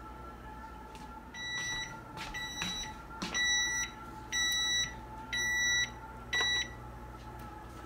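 GE Spectra electric range's oven timer beeping at the end of its countdown: six evenly spaced high-pitched beeps, about one a second, the last one cut short as a button on the control panel is pressed. The timer has run out, signalling the bake time is up. A faint steady hum lies underneath.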